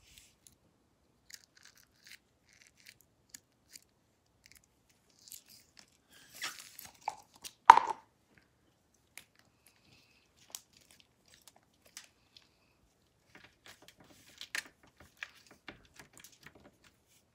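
Slime being pulled out of a plastic tub and then kneaded on a metal baking sheet: scattered soft sticky pops and crackles, with a louder knock about eight seconds in.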